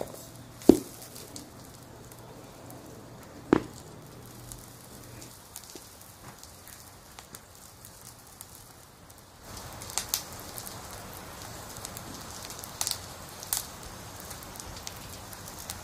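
Two sharp knocks, about a second in and again about three and a half seconds in, as a hardback book is handled on a table. From about nine seconds in, a fire crackling: a steady hiss with sparse pops.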